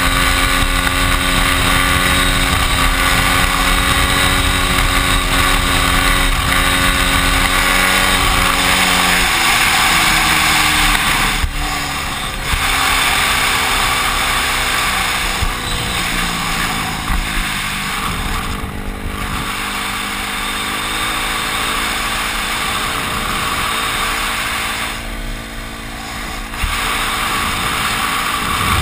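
Dirt bike engine running at steady revs during a wheelie, then dropping to lower revs about nine seconds in and changing pitch a few more times as the bike rides on. Wind noise hisses on the microphone throughout.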